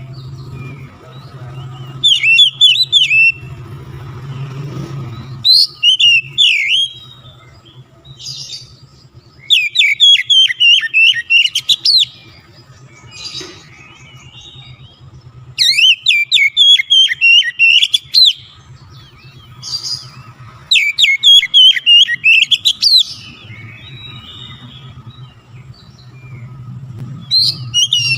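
Oriental magpie-robin (kacer) singing in about six loud phrases of rapid, repeated high notes, each one to two and a half seconds long with short pauses between. A low steady hum lies underneath.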